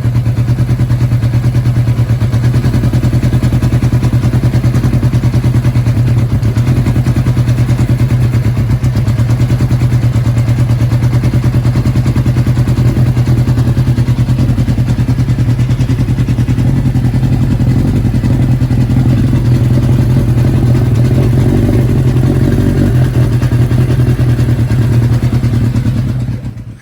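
Kawasaki ZXR400 inline-four motorcycle engine running steadily on its freshly rebuilt and synchronised Keihin carburettors with new spark plugs. The sound stops suddenly near the end.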